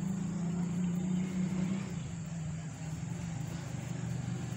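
Low, steady hum of an engine running, its pitch dropping slightly about two seconds in.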